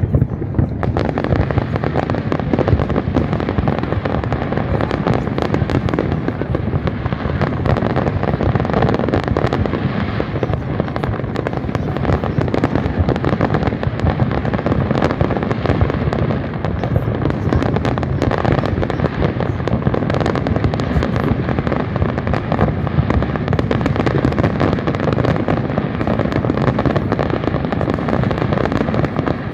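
Aerial fireworks display: a dense, unbroken barrage of shell bursts, bangs running together into a continuous low rumble with crackle on top.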